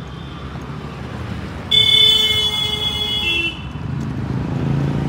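A vehicle horn sounds one long honk lasting nearly two seconds, dipping slightly in pitch just before it stops, over steady street traffic noise.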